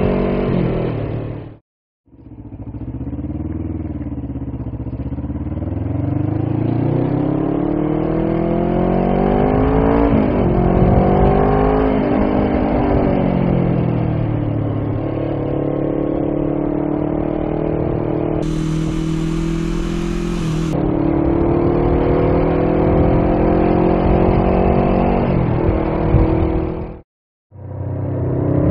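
Suzuki GS450 parallel-twin engine and exhaust under way, heard from a recorder in the rider's backpack: the engine note climbs as it accelerates and drops back at each gear change or easing off, over and over. The sound cuts out briefly about two seconds in and again near the end.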